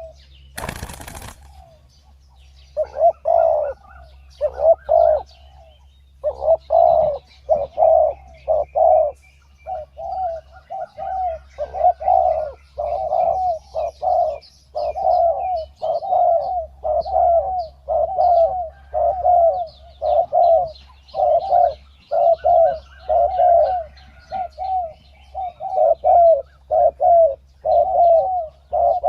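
Spotted doves cooing over and over in short phrases, calls following one another with barely a break. Faint chirps from smaller birds sit behind them, and a brief rustling burst comes about half a second in.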